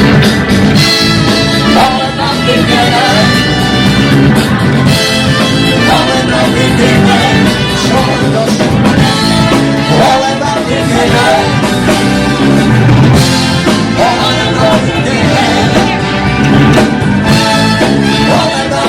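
Live band playing upbeat dance music with singing and brass.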